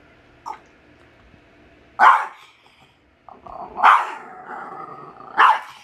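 Small white dog barking three times over his plate of vegetables, about two seconds in, about four seconds in and near the end, with growling from just before the second bark up to the third: the dog is guarding his food.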